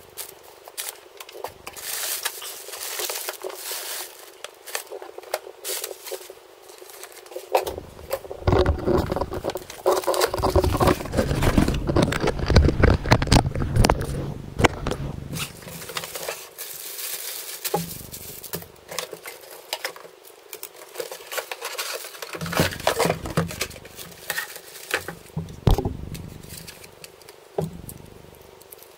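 Unpacking noise: bubble wrap and plastic packaging crinkling and rustling, and cardboard box flaps scraping and knocking. It is at its loudest with heavier handling and low thumps about a third of the way through.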